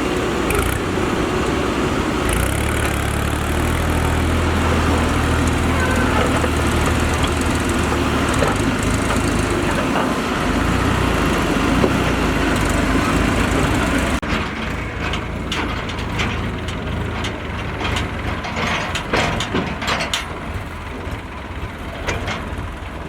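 Heavy diesel machinery running steadily with a low engine hum. About fourteen seconds in the sound changes abruptly: the engine is fainter and irregular knocks and clanks come through.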